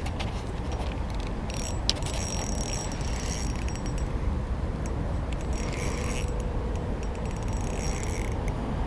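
Spinning reel being cranked to retrieve a small jig, its gears giving a light mechanical whir in two spells, one about a second and a half in and one from the middle on, over a steady low rumble.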